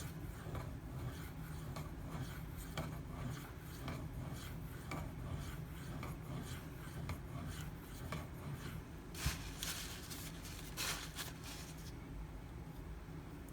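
Knife blade of SG2 (Super Gold) steel stroked across a Shapton Pro 5000-grit water stone, a rasping stroke about twice a second. A few louder strokes come near the end, then the strokes stop.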